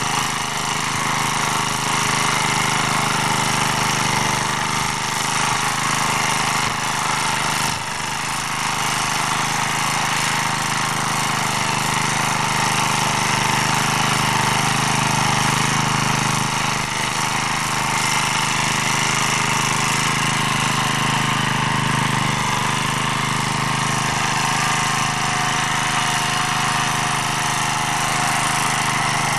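Small single-cylinder engine of an MD3 walk-behind tractor running steadily under load while its rotary tiller cuts the soil, with a brief dip in level about eight seconds in.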